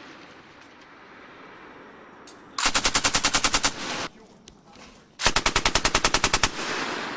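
Belt-fed machine gun (M240 or M249) firing two short bursts of about a dozen rounds each, roughly two and a half seconds apart. Each burst ends in a trailing echo, and the echo of a previous burst is dying away at the start.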